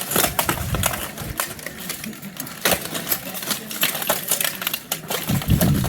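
Steel plate armour clanking and rattling under rapid strikes and grappling: a dense run of irregular metallic knocks and clinks, several a second.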